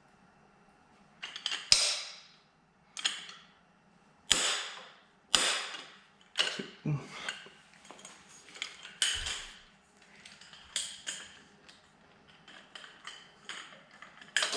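Metal hand tools clanking during engine work: a series of sharp metallic clinks and knocks at uneven intervals, roughly a second apart, each ringing briefly.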